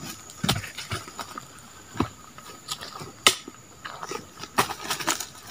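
Irregular footsteps, rustles and knocks on dry leaf litter as oil palm fruit bunches are carried and dropped on the ground. The sharpest knock comes a little past three seconds in.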